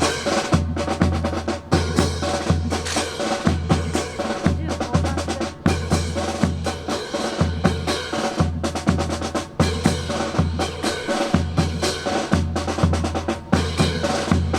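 Marching percussion: snare drum rolls and rimshots over a regular bass drum beat, accompanying a drill team's routine.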